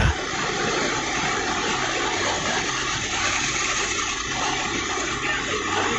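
Large coach bus engine running low and steady over the even noise of a busy bus terminal.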